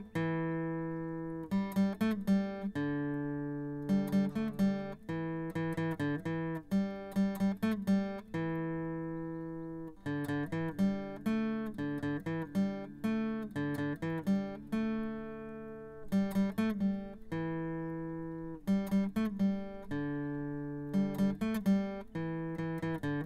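Acoustic guitar music: picked notes and chords, each ringing out and fading, in repeating phrases.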